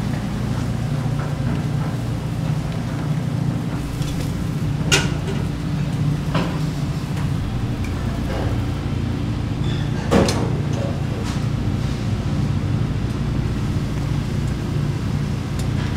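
A steady low hum with a few sharp clinks over it, the loudest about ten seconds in.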